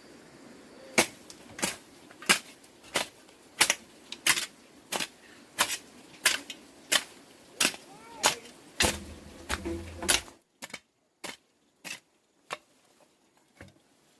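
Hammer blows on metal in a steady rhythm, about one and a half a second, about fifteen in all. Near the end they break off into a few quieter, scattered taps.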